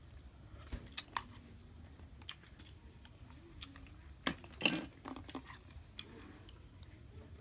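Scattered light clicks and taps of a spoon and chopsticks against an enamel bowl while eating, with a louder cluster of clicks a little past four seconds in.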